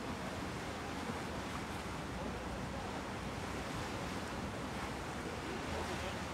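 Steady wind and sea noise from aboard a moving ship: wind on the microphone over the rush of the water.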